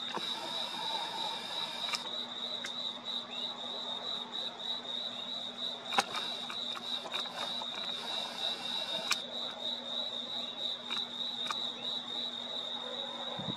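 Crickets chirping in a steady, high, rapidly pulsing trill. A sharp click comes about six seconds in, and another about three seconds later.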